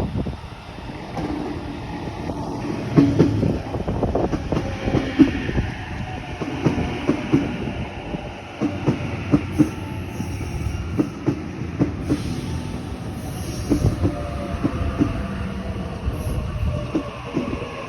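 Sydney suburban train passing, its wheels knocking over rail joints in an uneven clickety-clack over a steady rumble, with a faint falling whine in the second half.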